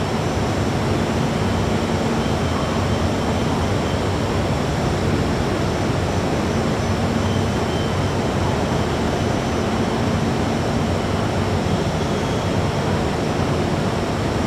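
Steady, even roar of an underground metro station platform, with a low hum underneath that does not change.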